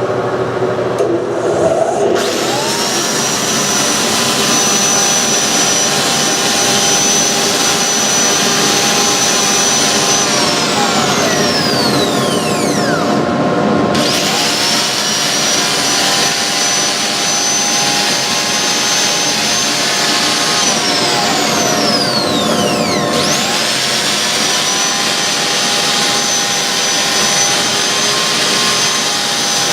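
Dust collector and wood lathe running together during spindle sanding, a steady rushing of air with a motor whine. The whine climbs in pitch about two seconds in, then twice sinks and climbs back up.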